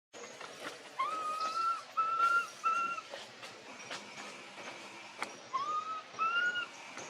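Baby monkey giving a series of high, whistle-like coo calls: five clear drawn-out notes, each slightly rising at the start, in two groups of three and two, with faint clicks between them.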